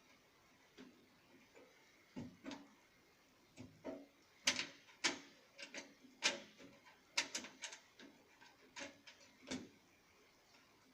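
Irregular sharp clicks and knocks of a desktop computer's case and parts being handled and fitted back together, coming thickest in the middle.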